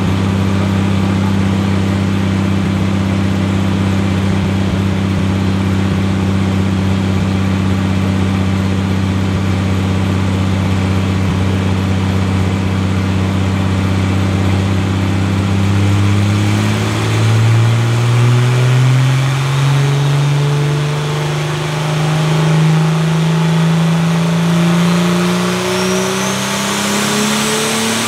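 Turbocharged BMW M20 straight-six in an E30 race car running under tuning on a dyno. It holds steady revs for about sixteen seconds, then climbs slowly in rpm, with a high whine rising alongside near the end.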